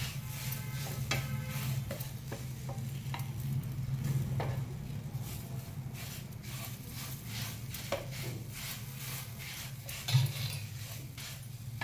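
Wooden spatula stirring and scraping grated radish around a non-stick frying pan, with a light sizzle as the radish fries in ghee to cook off its water. A louder knock comes about ten seconds in.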